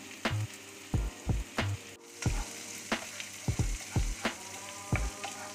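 Hot butter and oil sizzling in a frying pan as dried curry leaves are tempered in it with mustard seeds and ginger-garlic-green chilli paste, stirred with a wooden spatula. Irregular sharp knocks and pops sound over the steady sizzle.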